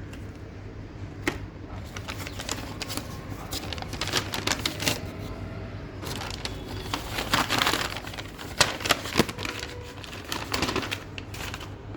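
Irregular clicks, taps and short crinkling rustles of a small pen drive and its plastic packaging being handled and opened, over a low steady hum.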